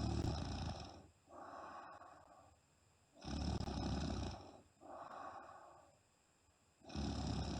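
A sleeping woman snoring loudly in a regular rhythm: three loud, low, rasping snores about three and a half seconds apart, the third starting near the end, each followed by a softer, higher breath.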